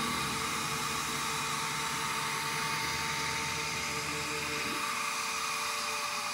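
CNC router spindle running with a steady high whine over a broad noise.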